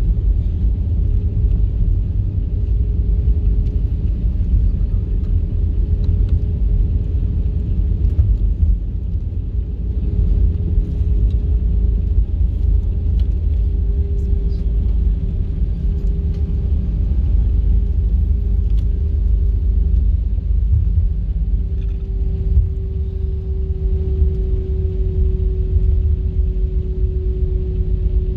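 Airliner cabin noise: a steady low rumble from the jet engines and airflow, with a steady engine hum that drifts slightly lower in the second half.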